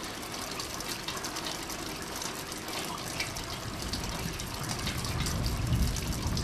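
Steady rain falling on foliage and roof tiles, an even hiss full of small drop ticks. A low rumble builds in under it over the last couple of seconds.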